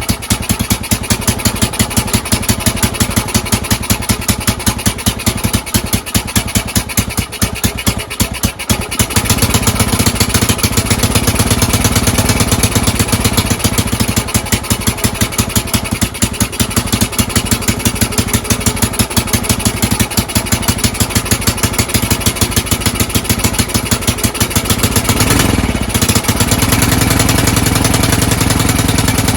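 Honda TLR200 trials bike's single-cylinder four-stroke engine running at a steady, rough idle, picking up a little about nine seconds in and dipping briefly near the end. It runs poorly, with extra exhaust noise that the owner puts down to the bent exhaust leaking at the head manifold.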